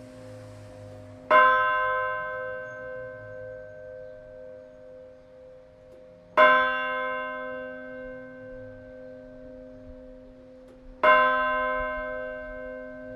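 Bronze church bell tolling: three strokes about five seconds apart, each ringing on and slowly dying away, with a low hum of the bell carrying on between strokes.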